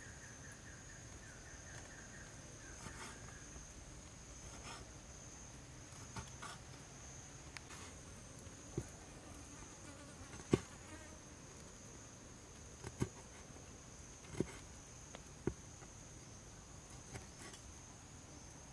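Kitchen knife knocking on a wooden chopping board as raw beef is cut into cubes: several sharp knocks in the second half, the loudest about halfway through. Underneath runs a steady high-pitched insect drone, with a second insect trill that fades out in the first few seconds.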